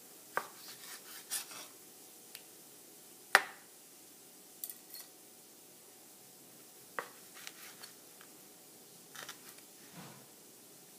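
Knife cutting cooked steak: scattered sharp taps and short scrapes as the blade meets the board beneath, the loudest a little over three seconds in.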